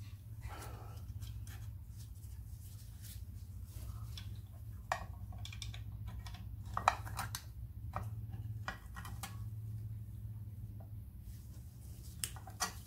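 Scattered metallic clicks and clinks of pliers and locking pliers working the shoe retaining pins and springs on a Land Rover Defender's drum park brake. The sharpest click comes about seven seconds in, over a steady low hum.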